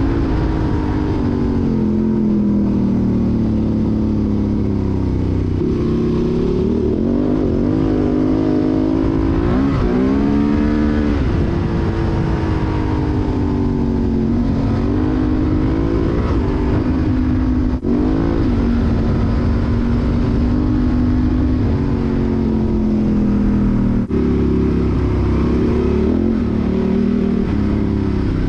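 Honda Transalp XL750's parallel-twin engine, breathing through a Mivv Dakar exhaust with Arrow decat pipe, under way off-road with the revs rising and falling continuously. There is a sharp climb in revs about ten seconds in, and two brief sharp knocks later on.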